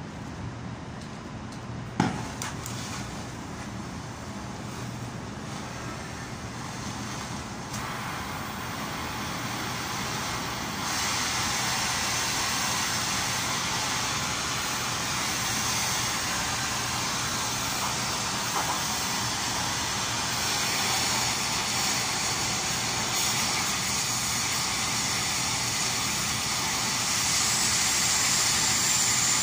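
An oxy-fuel gas torch: a single sharp pop about two seconds in, then the torch flame hissing steadily, growing louder around ten seconds in and again near the end as it heats a cast iron flange.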